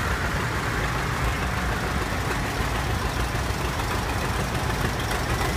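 Vintage John Deere tractor's two-cylinder engine running at a low, steady rumble as the tractor drives past.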